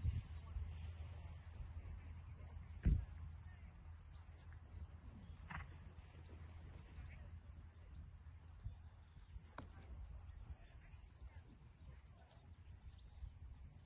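Faint open-air ambience with a steady low rumble, one sharp knock about three seconds in, and faint bird chirps.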